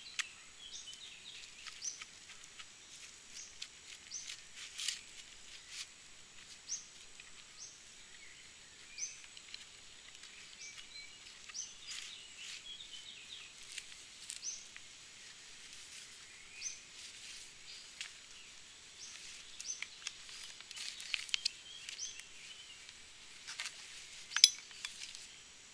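A bird repeating a short high chirp about once a second, over quiet woodland background. Mixed in are rustles and light knocks from weathered wooden boards and dry leaves being shifted by hand, with one sharper click a little before the end.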